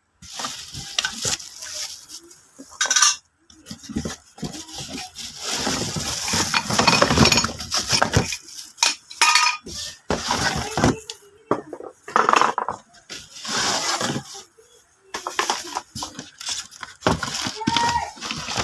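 Irregular handling sounds: stop-start rustling and crinkling with light clinks and knocks.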